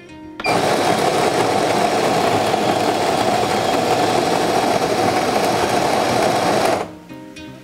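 Built-in coffee grinder of an Otten 708 automatic espresso machine grinding beans for an espresso, starting about half a second in, running steadily for about six seconds and stopping suddenly near the end.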